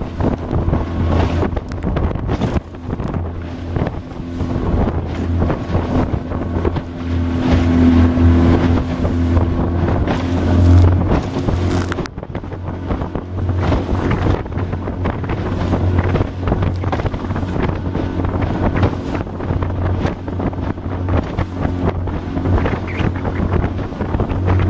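Small motorboat engine running steadily while the cedar strip hull pounds through choppy waves, with water slapping and spray hitting the bow. Strong wind buffets the microphone throughout.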